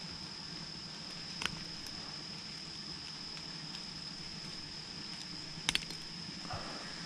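Pliers working a topwater plug's treble hooks out of a largemouth bass's mouth: one light sharp click about a second and a half in and a quick pair of clicks near the end, over a faint steady high whine.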